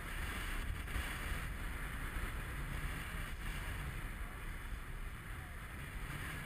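Wind buffeting the microphone over a steady rush of water along the hull of a Farr 30 racing yacht under sail.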